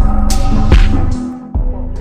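Background music with a heavy bass beat and sustained low notes, briefly dropping out just after the middle before the beat comes back in.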